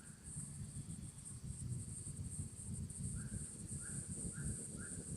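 Insects, crickets among them, chirring in a steady high band over a low rumble. From a little past halfway, a short call repeats about twice a second.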